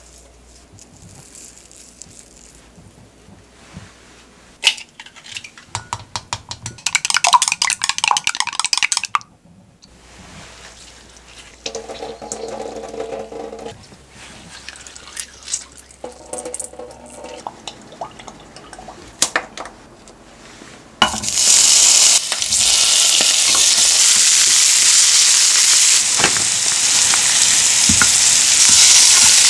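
Scattered kitchen handling sounds and a glass bowl being washed in a stainless steel sink, then, about two-thirds of the way in, loud steady sizzling starts suddenly as sliced cucumbers stir-fry in oil in a pan.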